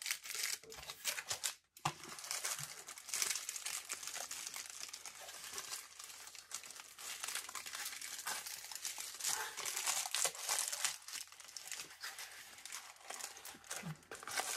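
Plastic toy packaging crinkling and rustling as it is handled and worked open, a steady crackle of small clicks with a brief pause about two seconds in.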